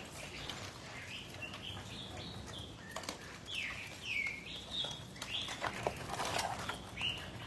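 Live string-tied mud crabs knocking and scraping against each other and a plastic basket as a hand rummages among them: scattered clicks and knocks. Short high chirping calls sound several times, mostly in the second half.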